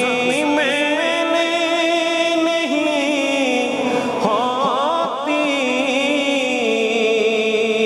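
A man singing an Urdu naat, drawing one word out into long held notes with melismatic turns.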